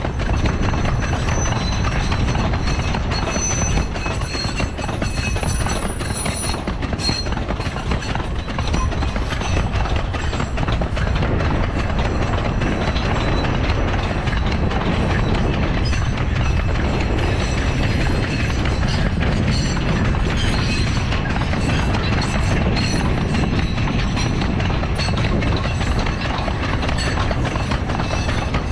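Loaded sugarcane bins of a cane train rolling past on narrow-gauge track: a steady rumble with continuous clatter of wheels over the rail joints, and brief high wheel squeals here and there.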